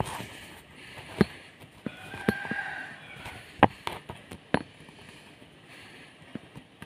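A few sharp knocks and clicks at irregular intervals, about a second apart, from the phone being handled against the pipe rail it rests on, over a quiet outdoor background. A brief faint tone sounds near the middle. No kite hummer is heard.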